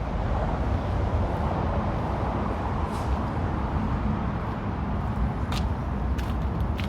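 Steady rumble of road traffic, with a few short clicks in the second half.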